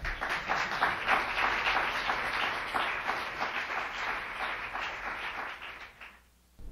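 Audience applauding, starting at once and dying away about six seconds in.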